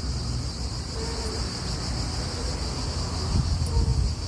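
Insects chirring steadily in a continuous high-pitched drone, over a low rumble.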